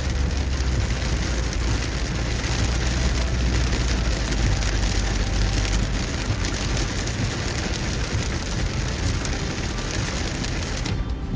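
Heavy rain hitting a car's roof and windshield, heard from inside the moving car over a low rumble from the road. The noise is dense and even, and dips briefly near the end.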